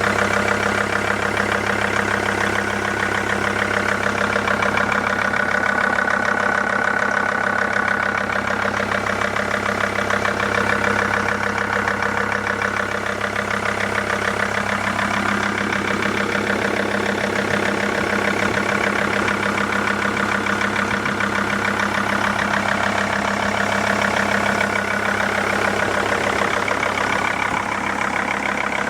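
Mercedes-Benz W211 engine idling steadily with a fast, even knock running through it. The knock is the fault the owner is complaining of.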